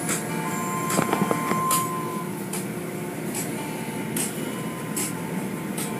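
Automatic car wash machinery running, heard from inside the car: a steady mechanical rumble with regular hissing swishes about every second, and a few knocks around a second in.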